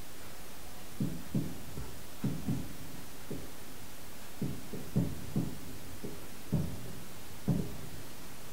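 Aerial firework shells bursting overhead: a run of about ten dull, muffled booms at uneven intervals, some in quick pairs, over a steady hiss.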